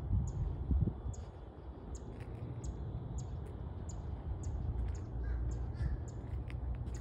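Outdoor ambience: a steady low rumble, like wind on a phone microphone, with short, high-pitched bird chirps repeating about twice a second.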